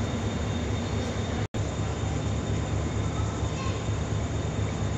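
Pakistan Railways GEU-20 (GE U20C) diesel-electric locomotive's twelve-cylinder diesel engine, a steady low rumble as it approaches slowly into the platform. The sound cuts out for an instant about a second and a half in.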